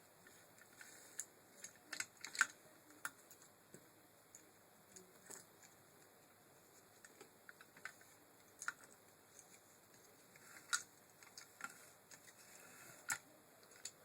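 Light, irregular clicks and taps of small plastic and metal parts being handled, the sharpest about two and a half seconds in.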